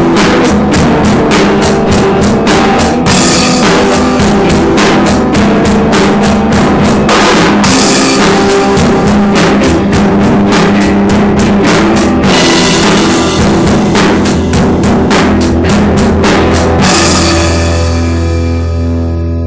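Loud amateur rock jam on a drum kit with guitar: fast, dense drumming with cymbals over held chords. The drumming stops about 17 seconds in, leaving a final chord ringing out and slowly fading.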